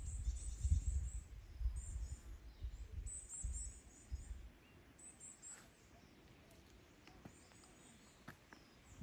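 A small songbird singing high-pitched phrases of rapid chirps, repeated several times, over a low rumble that dies away about halfway through.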